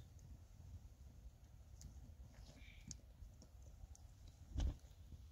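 Faint scattered clicks over a low rumble, with one brief dull thump about four and a half seconds in.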